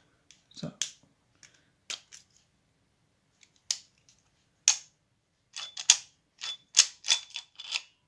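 Sharp metallic clicks and taps of a pick and tension wrench working in a Master Lock Excell 80 mm discus padlock. A few are spaced out at first, then they come thick and fast in the last few seconds, some with a faint metallic ring.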